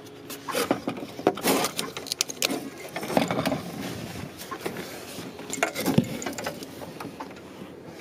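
Handling noise from a handheld camera moved about close up: irregular clicks, knocks and rustles, with a sharper knock about six seconds in.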